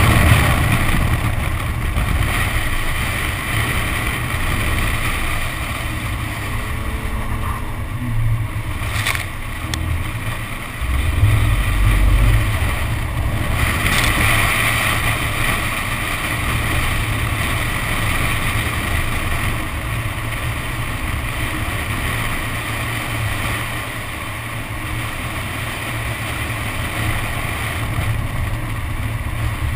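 Nissan 370Z's V6 engine running as the car slides across a wet track, with heavy wind rumble on an outside-mounted microphone and the hiss of tyre spray off standing water. The rumble swells briefly about a third of the way in.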